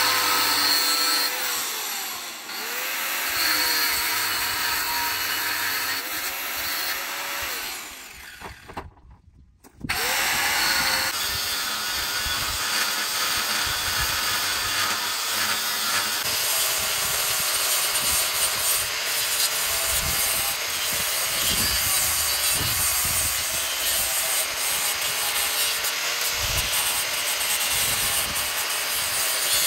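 An electric angle grinder cuts and grinds steel. Its motor whine dips and recovers as the disc bites into the metal. About eight seconds in it stops briefly, then a grinder runs again steadily on the steel edge, trimming off a protruding part.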